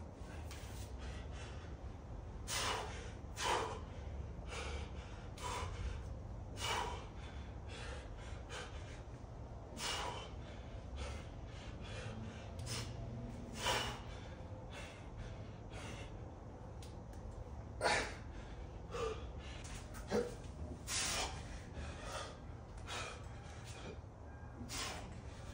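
A man breathing hard with exertion: short, forceful exhalations at irregular intervals of about a second, over a low steady hum.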